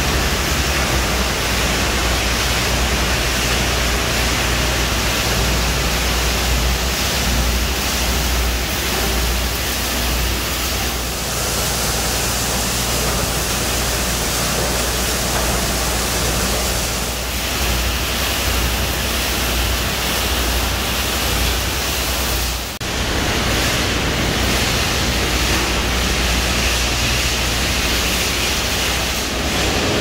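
Auto shredder residue recycling line running: a steady, loud rush of mill, conveyor and air-separator machinery with a deep hum underneath. The noise drops out for a moment about three-quarters of the way through.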